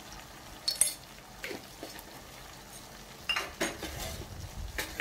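A metal spoon tapping and clinking a few times against a stainless steel kadhai while turmeric powder is added, over a faint sizzle of the oil.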